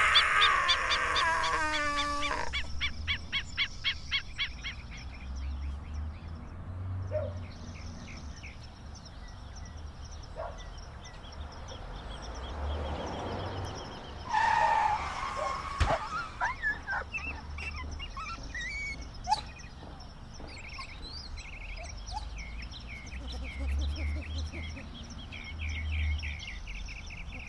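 A man's loud, drawn-out wail falling in pitch, cut off about two seconds in. It is followed by birds chirping and trilling over a low rumble, with a short rushing burst about halfway through.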